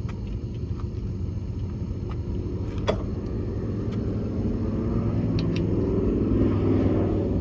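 A car engine running with a steady low rumble that grows louder over the last couple of seconds. There is a single sharp click about three seconds in.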